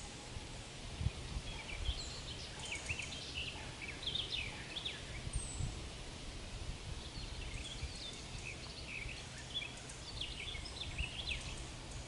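A songbird singing two long phrases of quick, varied chirps, the first from about two to five seconds in and the second from about seven to eleven seconds, with a thin high falling note between them. Under the song there is a steady low rumble with a few soft thumps.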